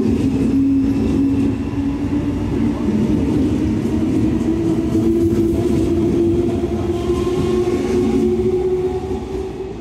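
Munich S-Bahn class 420 electric multiple unit running close by, its traction motors humming with a tone that climbs steadily in pitch as the train gathers speed. The sound fades near the end.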